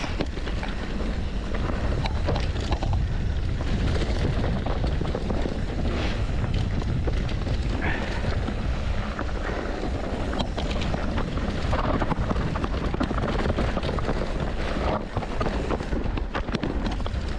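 Mountain bike riding down a rough trail: wind rumble on the microphone, with tyre noise and many short knocks and rattles of the bike over the ground.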